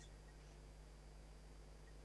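Near silence: faint steady hum and hiss of the line.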